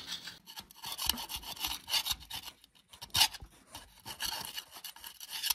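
Flat metal scraper scraping old gasket material off the fuel pump mounting boss on the cast-iron engine block of a 1946 Willys CJ2A, in short, irregular strokes with brief pauses between them.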